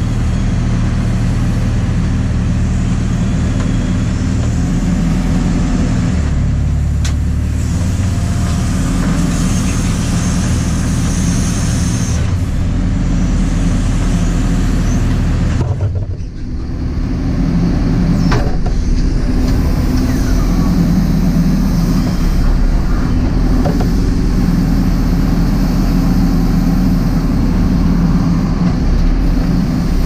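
JCB 4CX backhoe loader's diesel engine running steadily under hydraulic load while the backhoe digs and slews, heard from inside the cab. The engine note dips briefly about halfway through, and there are a few light clicks.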